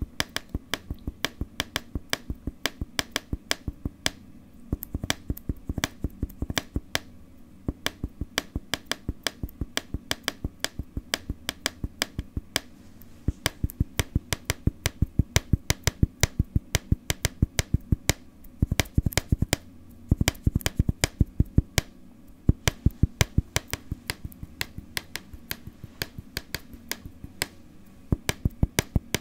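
Rhythmic ASMR tapping on a hard surface, sharp taps at about three to four a second in a steady pattern, with a quick flurry of taps about nineteen seconds in.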